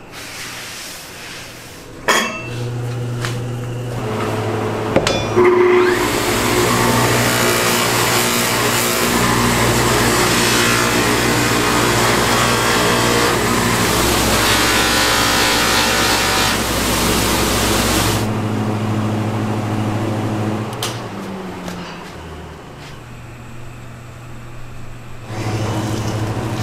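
An electric grinder's motor hums, then a steel sword blade is pressed against the spinning grinding wheel, giving a loud, harsh grinding for about twelve seconds before the motor hums on alone. A sharp knock comes about two seconds in.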